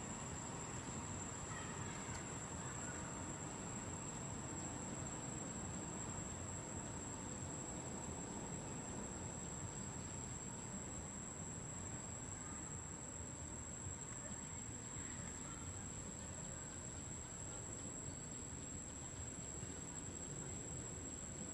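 Quiet outdoor background: a steady, high-pitched insect drone over a low, even hiss.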